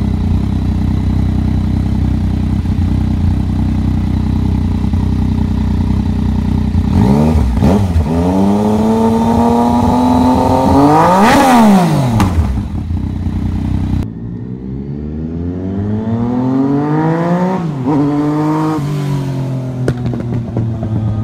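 2017 Yamaha FZ-09's three-cylinder engine through a Toce Performance exhaust without the decibel killer. It idles steadily, then is revved in a quick blip about seven seconds in and a longer rev that climbs and falls about eleven seconds in. After a cut, the bike accelerates away, engine pitch climbing, dropping at a gear change, and climbing again.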